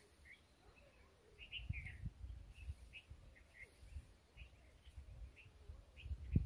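Small birds chirping in short, scattered calls in the background, with faint low rumbles, the loudest about two seconds in and again just before the end.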